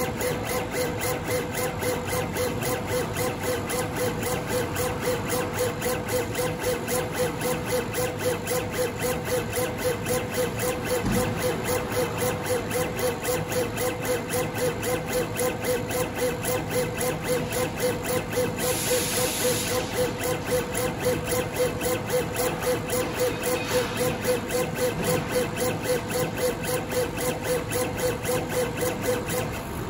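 CNC laser cutting machine working acrylic: the gantry drives jog the laser head from dot to dot in quick, even pulses of about three a second, over a steady mid-pitched whine. A short hiss comes about two-thirds of the way through.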